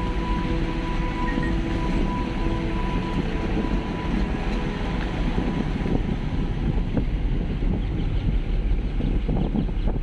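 Car driving along a rough dirt road: steady low road and engine rumble with wind noise on the microphone. A few steady tones sound over it and fade out about halfway through.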